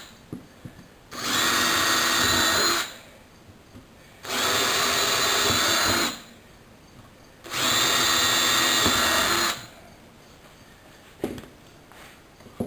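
Hand-held power drill boring all the way through a wood block in three runs of about two seconds each, with a steady motor whine and short pauses between. A few light taps near the end.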